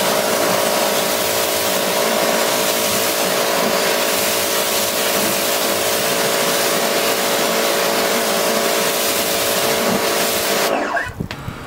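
Electric pressure washer running steadily: a motor tone under the hiss of its spray rinsing foam off a car bonnet. It cuts off about a second before the end.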